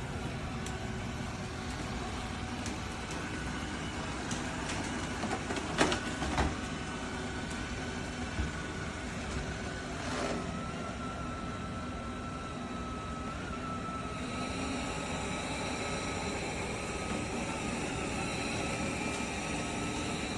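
BPMIO robot vacuum running with a steady motor hum, with a few knocks about six seconds in and a thin steady whine from about ten seconds in.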